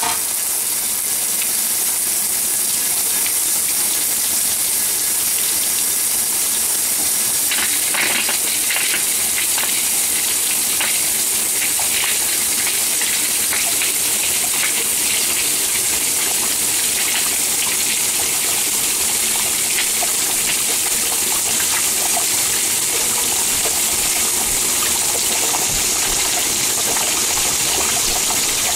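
Water under full supply pressure gushing in a tall jet out of a two-handle kitchen faucet's valve body, where the handle and stem have blown out because the retaining nut was left off; a loud, steady hissing rush with splattering against the wall and sink.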